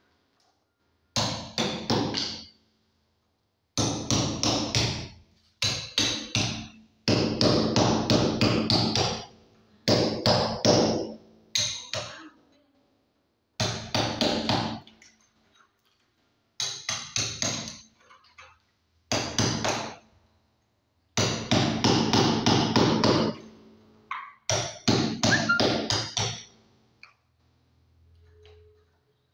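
Hammer driving a chisel into a masonry wall to cut a recess for a flush-mount electrical box: bursts of rapid blows a second or two long, about eleven of them, separated by short pauses.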